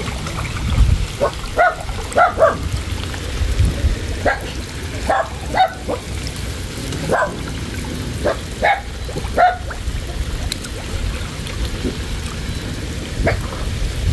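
A dog giving short, high barks, about ten of them at irregular intervals, over water sloshing and lapping around someone wading chest-deep.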